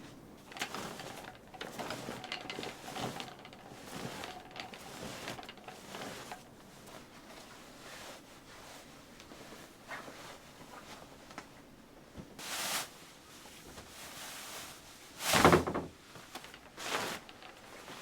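Household handling noises: scattered light clicks and rustles, then a louder half-second knock or slide about fifteen seconds in, with a few more short knocks near the end.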